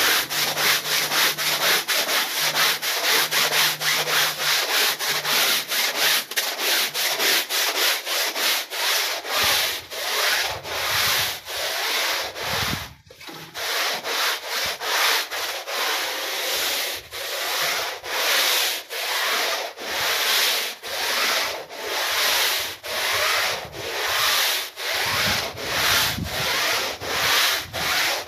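Long-handled stiff-bristle push brush scrubbing a wet, lathered rug in quick repeated back-and-forth strokes, a scratchy rasping rub. There is a brief pause about halfway through.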